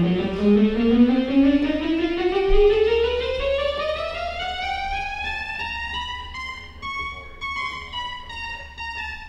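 Compact synthesizer with mini keys playing one sustained, buzzy tone that slides steadily upward in pitch for about seven seconds, then slowly sinks again near the end, over a steady low drone.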